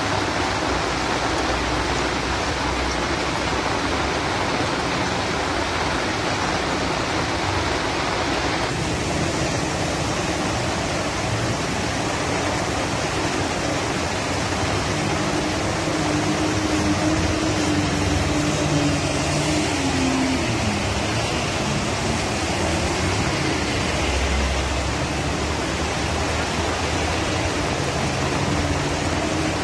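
Heavy rain falling steadily, an even rushing hiss. A low hum comes in about halfway through, dips in pitch and fades after a few seconds, returning near the end.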